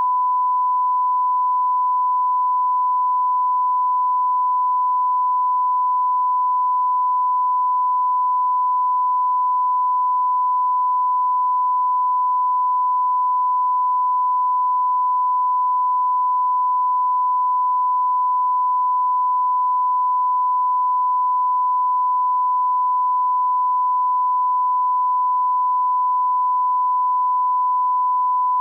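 A continuous censor bleep: one steady 1 kHz sine tone held without a break, covering the swearing.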